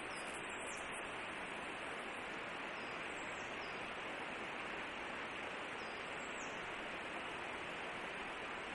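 Forest ambience: a steady, even rushing hiss, with faint, thin, high-pitched calls a few seconds apart, some dropping in pitch.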